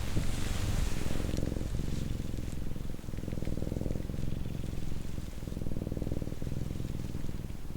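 Domestic cat purring steadily right at the microphones, a continuous low, rapidly pulsing rumble that dips briefly every couple of seconds as the cat breathes. A soft hiss, like fur rubbing, comes in during the first second.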